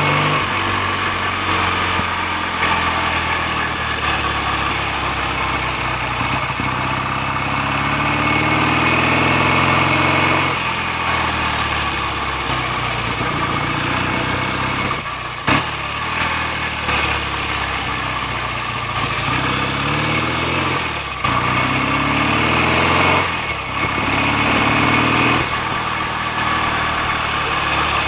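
BSA A65 650 cc parallel-twin motorcycle engine running on the road, its pitch repeatedly climbing as it pulls and then dropping at each gear change. There is a brief sharp knock about halfway through.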